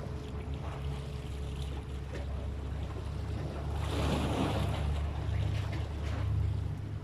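Wind rumbling on the microphone over water noise, with a louder rush of noise about four seconds in.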